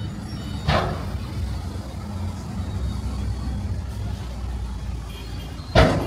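Diesel dump truck running with a steady low rumble while tipping its load. Two short, loud bursts of noise break through, about a second in and again near the end.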